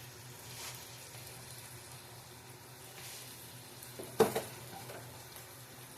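Chopped onion frying gently in butter in a pan over medium heat, a soft steady sizzle. A single clink of kitchenware about four seconds in.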